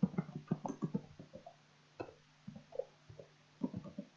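Computer keyboard typing: a quick run of irregular key clicks, a few scattered ones, then another short run near the end.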